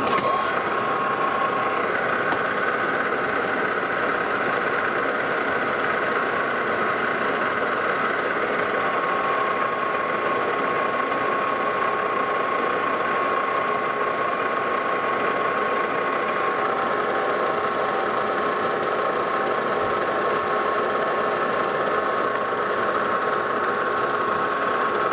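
Metal lathe running steadily with a whine of several steady tones, as a boring bar takes a light spring pass through the bore of a metal disc.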